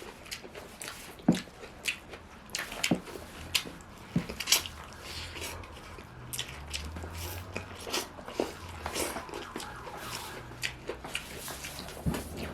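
Close-miked eating: mouths chewing and smacking, with many short, irregular wet clicks.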